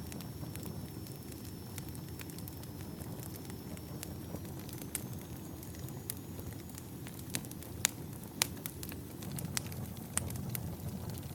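Wood campfire burning: a steady low rumble of flames with scattered sharp crackles and pops from the burning logs, two louder pops about two-thirds of the way in.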